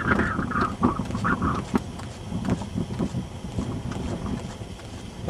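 Gusty wind buffeting the camera microphone: an uneven, rough rumble, with a brighter rush during the first couple of seconds.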